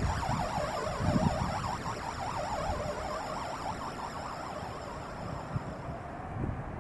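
A fast warbling electronic tone, rising and falling about four times a second, that fades out after about four seconds. Low rumbles on the microphone come at the start and again about a second in.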